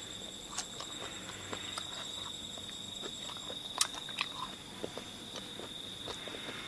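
A steady high-pitched insect trill, with scattered small clicks and taps of eating and handling food. The sharpest click comes a little under four seconds in.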